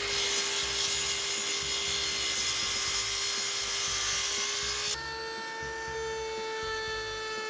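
Festool sliding miter saw running and cutting through solid oak table legs, trimming off the roundovers. About five seconds in, the sound switches abruptly to a router table running steadily with a high whine while chamfering the leg edges.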